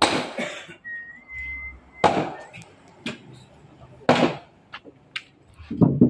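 Blocks of wood knocking against a large trembesi log, as loud knocks about every two seconds. A short whistled tone sounds about a second in.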